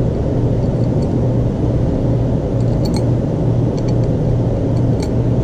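Steady low rumble with a constant hum, with a few faint light clicks from about three seconds in.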